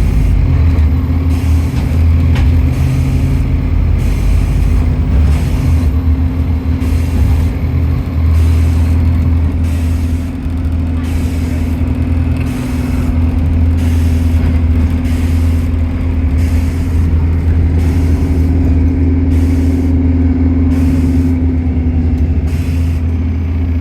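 A bus engine running steadily, a constant low drone with a steady hum above it.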